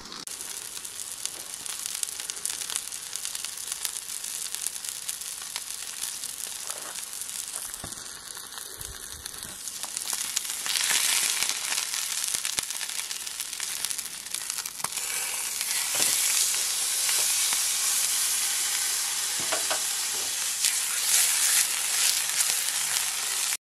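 Ribeye steak sizzling and frying in oil in a nonstick pan over a gas camp-stove burner, a steady hiss that grows louder about halfway through.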